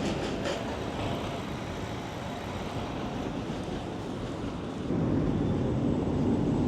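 A rail vehicle running past at street level: a steady rolling rail noise that grows louder and heavier about five seconds in, literally shaking the ground.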